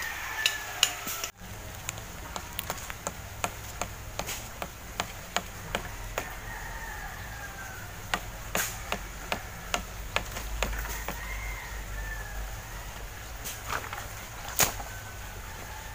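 Sharp, irregular wooden knocks, a stick striking sticks of firewood on the ground, at times a few a second, with two louder knocks near the middle and near the end.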